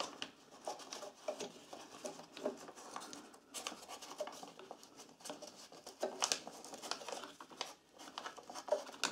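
Faint, scattered paper rustles, scrapes and small clicks as a folded paper strip is slipped between a small engine's ignition coil and its flywheel and the coil is pushed down onto it to set the air gap.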